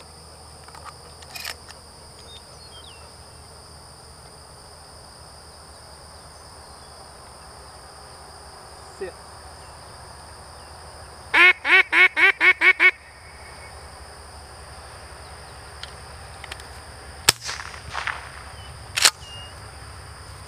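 Duck call blown in a quick run of about seven loud, evenly spaced quacks, the call used to draw a retriever's eyes to a mark. A few seconds later come two sharp bangs about two seconds apart.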